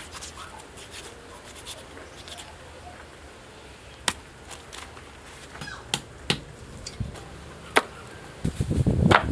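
Butchering a pig carcass with a knife: quiet cutting and handling of the meat, broken by a few sharp single knocks on a wooden chopping block. Near the end comes a quick run of louder knocks and thumps.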